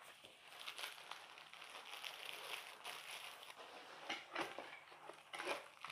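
Packaging being handled, rustling and crinkling, with a few sharper crackles near the end.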